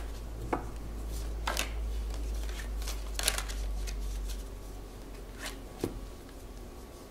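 A tarot deck being shuffled and handled by hand, with a few short, sharp card snaps.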